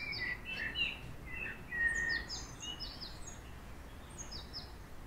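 Small birds chirping: quick short notes that slide downward, coming in clusters of several at a time, over faint low background noise.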